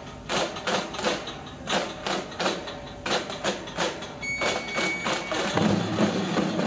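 A troupe's dappu frame drums being beaten in sharp, repeated strokes, about three a second. A high steady tone sounds for about a second midway, and the playing grows denser near the end.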